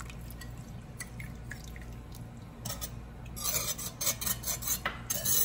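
Sauce bubbling in a cast-iron skillet with small pops, then a wire whisk stirring cornstarch slurry into it, sloshing liquid and clattering against the pan, loudest in the last two seconds as the sauce thickens.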